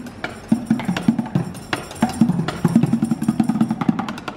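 Background music with a quick percussive beat of sharp clicks over a pulsing low bass line.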